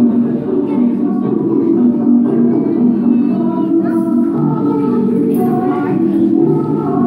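Music with a sung melody, playing without a break.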